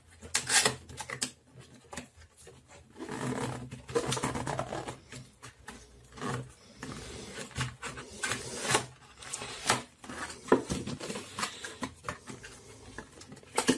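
Cardboard packaging being handled: a printed sleeve slid off a microphone box and the inner box's flap opened, with irregular rustling, scraping and small taps of card.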